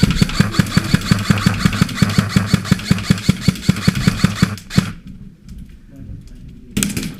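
Electric airsoft rifle firing one long full-auto burst, its motor and gearbox cycling at about six shots a second. The burst stops suddenly after about four and a half seconds, and a single sharp click follows.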